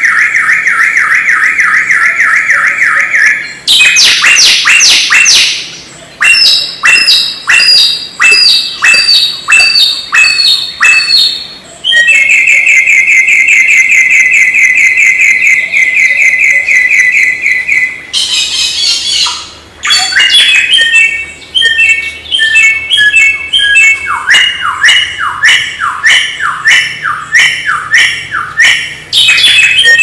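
Samyong songbird singing a loud, varied song. It alternates long, rapid high trills with runs of sharp down-slurred notes repeated about twice a second, and gives a short harsh chatter about two-thirds of the way through.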